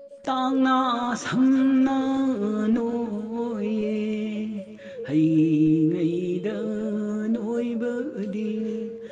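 Music of chant-like singing in phrases, with long held, wavering notes.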